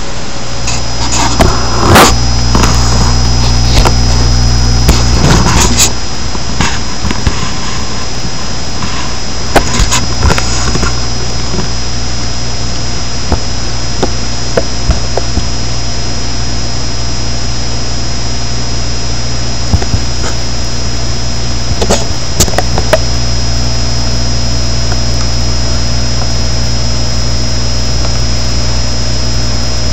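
Handling noise from a camera being moved about in a towel: knocks, clicks and rubbing, thickest over the first twelve seconds and again briefly about twenty-two seconds in, over a steady loud low hum with a faint high whine.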